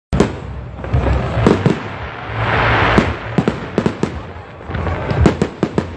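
Fireworks going off in a rapid, irregular series of sharp bangs and cracks, with a swell of hissing about two and a half seconds in.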